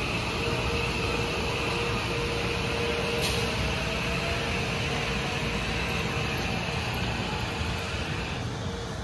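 Kawasaki M8 electric multiple-unit train rolling slowly past: steady wheel-on-rail rumble with a steady high whine that drops away near the end as the last car goes by. A single sharp click about three seconds in.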